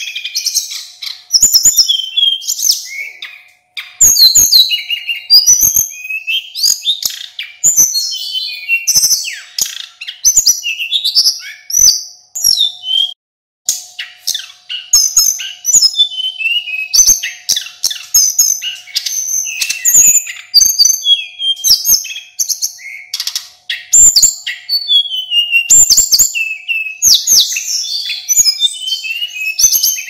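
Male sulingan gunung, a Cyornis blue flycatcher, singing in full song: a rapid, continuous stream of varied high whistled notes and phrases, with one brief pause about 13 seconds in. A faint steady hum runs underneath.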